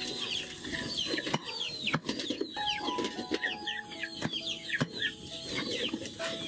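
A large chopping knife striking down through food onto a wooden board, a sharp chop about once a second at an uneven pace, with birds chirping throughout.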